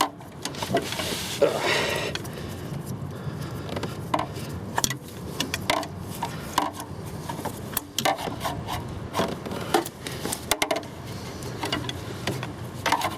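Hands working a plastic wiring connector and the parts around it deep in a minivan's engine bay: irregular clicks, taps and rubbing scrapes as the oxygen sensor's wiring plug is tugged at, with a short rush of noise about a second in.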